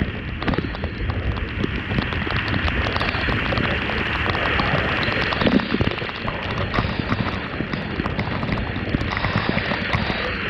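Fish frying in hot cooking oil: a steady sizzle dotted with many small pops and crackles.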